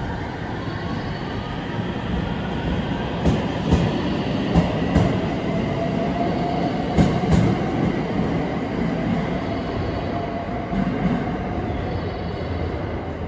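Ainokaze Toyama Railway 521 series electric train pulling away and passing. Its traction motor whine climbs in pitch as it gathers speed, and there is a run of sharp clacks as the wheels cross rail joints. The train noise eases near the end as it leaves.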